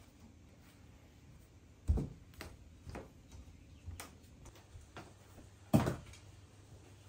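A few knocks and clicks of a tray and dishes being handled on wooden surfaces, with two louder thuds, one about two seconds in and one near six seconds.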